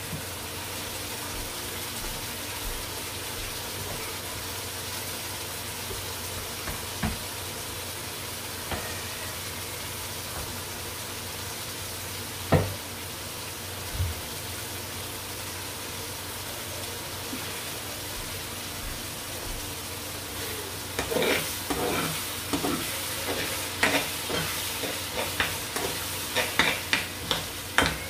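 Sauce frying steadily in a pan, with a few single knocks in the first half. From about twenty seconds in, a metal spoon scrapes and taps against the pan in quick repeated clicks as the sauce is stirred.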